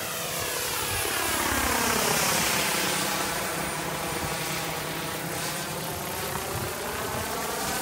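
Turbine-engined large-scale RC UH-1D Huey model helicopter flying overhead: its turbine whine and rotor noise dip in pitch over the first few seconds, then rise again near the end. The sound is loudest about two seconds in.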